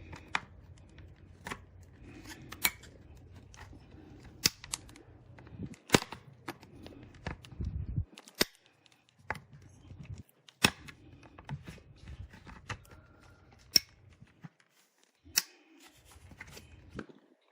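Sharp plastic clicks and snaps at irregular intervals, with faint handling rustle between them, as the plastic clips of an external hard-drive enclosure's case are pried and pushed apart.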